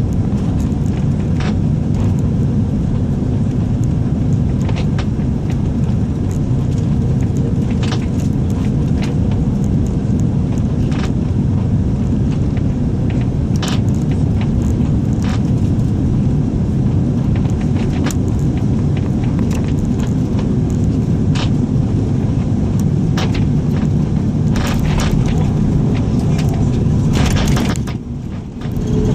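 Boeing 777 cabin noise as the airliner rolls on the ground after touchdown: a loud, steady rumble with frequent cabin rattles and clicks. Near the end the noise briefly dips, then a steady hum comes up.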